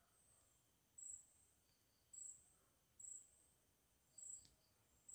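Near silence with a faint, high-pitched insect chirp repeating about once a second, five times.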